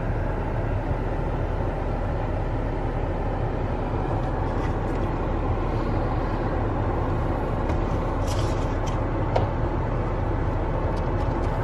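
Pickup truck idling while stopped, heard from inside the cab as a steady low drone, with a few faint clicks later on.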